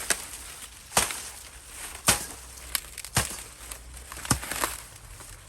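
Dry field corn being picked by hand: sharp snaps about once a second, two in quick succession near the end, over the rustle of dry stalks and husks.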